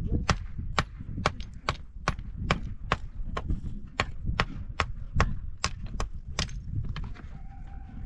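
Rapid, evenly spaced blows of a hand tool, about two and a half a second, stopping about seven seconds in.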